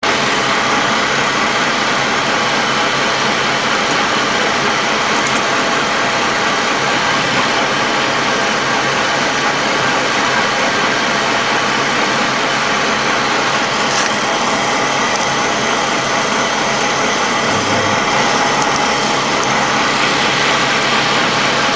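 Steady drone of a LAV III armoured vehicle's diesel engine and running gear, heard from inside the hull.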